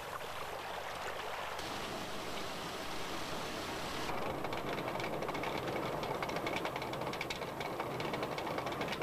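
Water rushing through a mill race, then from about four seconds in a wooden watermill running: a fast, even clatter of the hopper's shoe knocking as the millstones turn.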